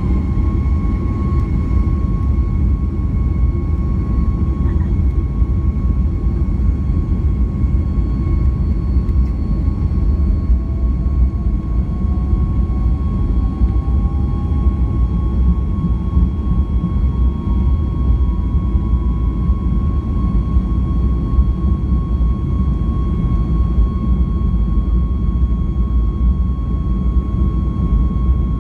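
Jet airliner engines at takeoff power: a loud, steady rumble with a constant high-pitched whine over it, and a fainter second tone rising slowly through the middle.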